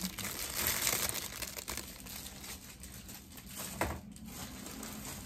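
A thin clear plastic packaging bag crinkling as it is handled, loudest in the first two seconds and thinning out after, with one sharp tap about four seconds in.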